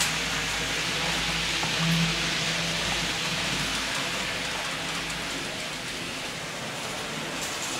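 Model trains running on a model railway layout: a steady rushing hiss from the wheels and motors, with a low hum that fades out about three seconds in.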